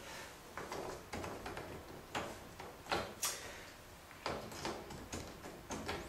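Faint, irregular small clicks and light plastic knocks from hands working parts loose inside a washing machine's top control console, around the door-lock wax motor.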